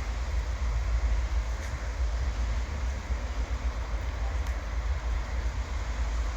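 Steady rumble of a departing passenger train rolling along the track, with a couple of faint clicks.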